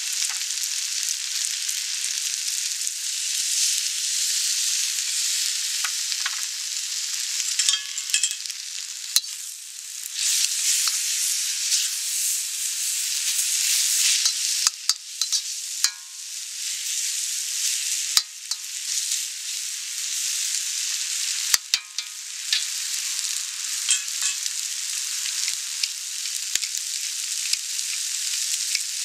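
Glass noodles, crab and vegetables sizzling in a hot wok, with a steady frying hiss as they are tossed. A metal spatula scrapes and clacks against the wok now and then.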